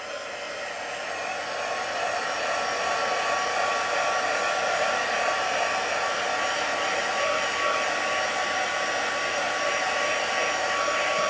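Stampin' Up! craft heat tool running on its low setting: a steady blowing whir with a faint whine, growing louder over the first couple of seconds and then holding steady.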